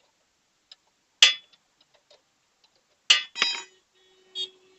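Metal spanner clinking and knocking on a motorcycle's rear axle nut as the nut is worked loose: about four sharp metallic strikes, the one about three and a half seconds in leaving a ringing tone.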